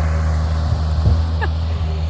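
Skid steer engine running steadily with a constant low drone.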